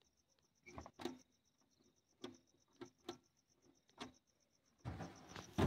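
Sharp clicks and knocks from a hand working the switches of an electric pump motor's starter box, with no motor starting because the power is out. A cricket chirps in a steady pulsing trill behind them. Near the end comes a louder rustle with a thump.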